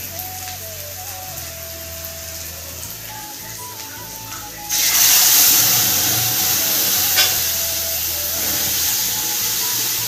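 A hot tadka of fried cumin and spices is poured into a pot of dal. A quieter sizzle gives way, about halfway through, to a sudden loud hissing sizzle that slowly dies down. Background music plays throughout.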